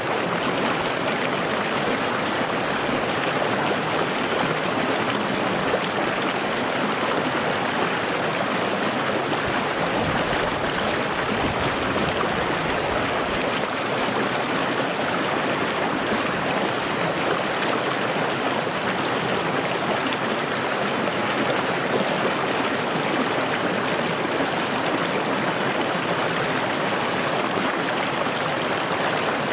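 A small rocky river running over stones: a steady rush and babble of water from a shallow riffle.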